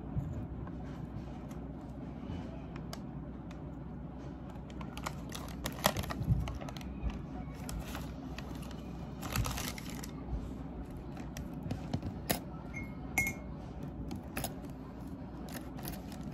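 Crinkling and rustling of a foil-and-paper wound-dressing packet being handled and opened, in scattered small crackles and clicks, loudest about six seconds in and again near ten seconds.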